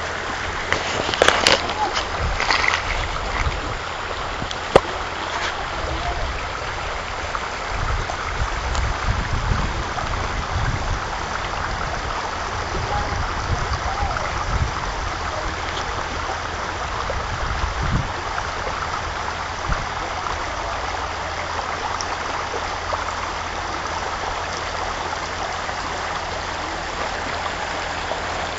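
Shallow river rushing steadily over a stony gravel bed, with a sharp click about five seconds in.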